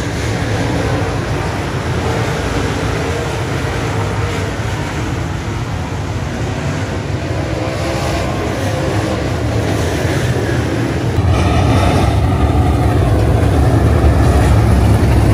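A field of dirt late model race cars' V8 engines running on a dirt oval, a steady loud drone that gets louder about eleven seconds in as the pack comes close.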